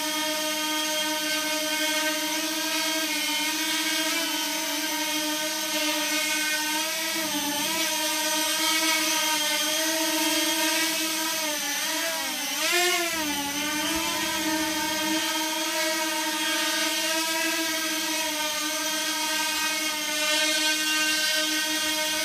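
Mudskipper 250 quadcopter's brushless motors and propellers whining steadily in a hover, the pitch dipping and wobbling for a couple of seconds around the middle as the throttle is worked, then steady again.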